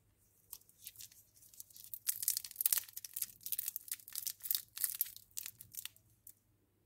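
Printed foil lollipop wrapper crinkling and tearing as fingers peel it off the candy: a dense run of sharp crackles, loudest in the middle, that stops shortly before the end.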